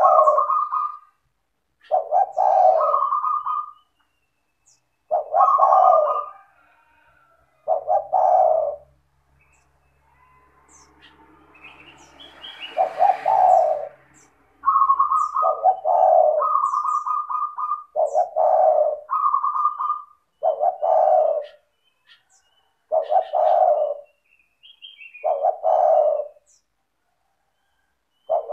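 Spotted dove (tekukur) cooing in repeated phrases, about ten in all, each a second or so long and a couple of seconds apart, with faint high chirps of small birds and a brief hiss around the middle.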